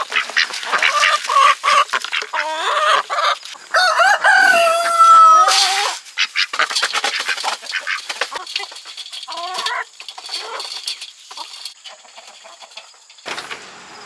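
Chickens clucking and Indian runner ducks calling as they crowd in to feed, with a dense patter of short clicks from bills dabbling at grain. One long drawn-out call, held steady for over a second about four seconds in, is the loudest sound.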